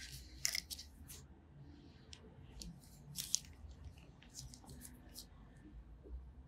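Faint scattered clicks and soft rubbing of gloved hands handling the foot and a thin wooden manicure stick along the edges of freshly polished toenails.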